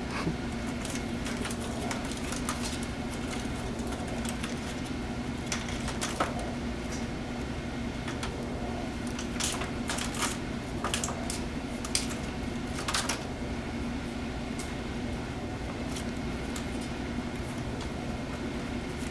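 Kittens scrabbling at a plastic milk crate and scampering on a concrete floor: scattered clicks and taps, about a dozen, over a steady hum.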